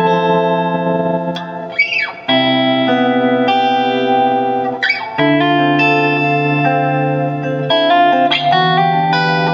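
J-Craft T-3V Telecaster-style electric guitar played clean, letting chords ring and changing chord every two to three seconds. A short squeak from the strings comes at each chord change.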